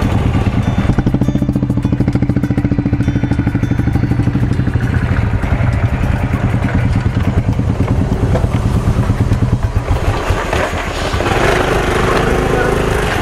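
Motorcycle engine idling at low speed with an even, rapid beat. Voices join in near the end.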